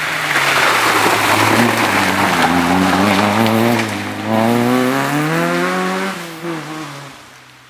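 A small hatchback rally car passing at speed on a loose gravel stage, its tyres rushing and spraying stones through the bend. About four seconds in, the engine revs climb hard as it accelerates away, then drop and fade.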